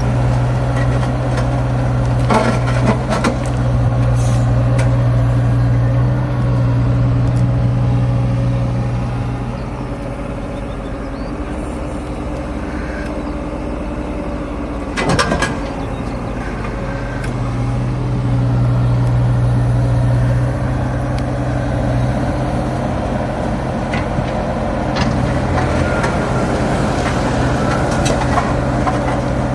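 Cat 305.5 mini excavator's diesel engine running steadily under hydraulic load, its note falling off for several seconds midway and then picking up again. A few sharp knocks sound over it, the loudest about halfway through.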